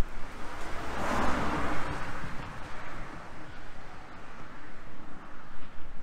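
A car passing by: its tyre and engine noise swells about a second in and fades away over the next couple of seconds, over a low steady rumble.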